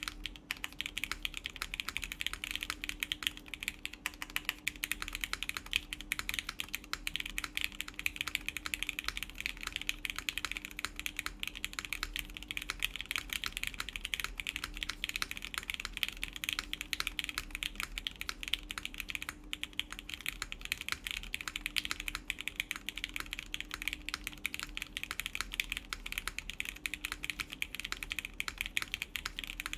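Steady, fast typing on an Etar87 mechanical keyboard in its bottom-mount configuration, a dense unbroken run of key clacks. It has lubed Gateron Yellow linear switches with milky tops and 65 g springs in a full aluminium plate, and lubed clip-in stabilizers.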